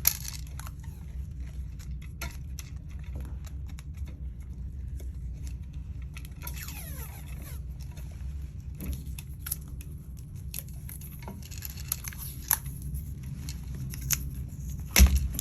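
Electrical tape being pulled off the roll and wrapped around a GFCI outlet, with scattered small crackles and clicks and a brief squeak of tape peeling. A thump near the end.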